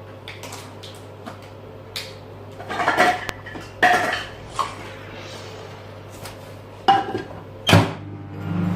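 Kitchen utensils clinking and knocking against dishes: a series of separate sharp clinks, some with a short metallic ring, the loudest about three and four seconds in and near the end.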